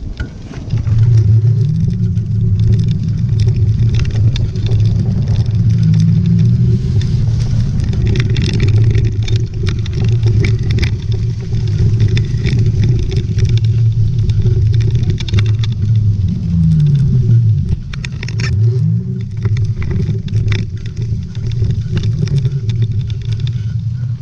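A vehicle engine running steadily with a low hum. A little after the middle its pitch falls and rises again twice, as with changes in revs. Scattered clicks and knocks run through it.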